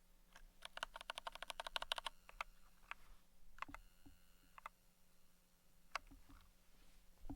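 Keys of a 60% mechanical keyboard with red linear switches being typed, faintly: a fast run of keystrokes lasting about a second and a half, then a handful of single presses spaced out.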